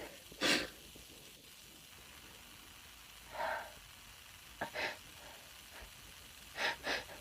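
A woman's quiet sniffs and breaths between sneezes: a sniff just after the start, a breath in the middle, a couple of small sniffs, then two quick inhalations near the end, the catching breaths that come before a sneeze.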